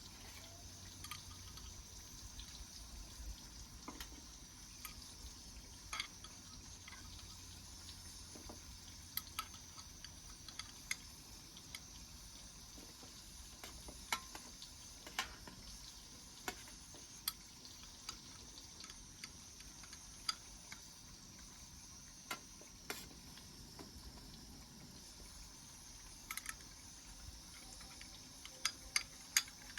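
Cooking over a wood fire: a faint steady hiss with irregular sharp pops and crackles, several of them close together near the end.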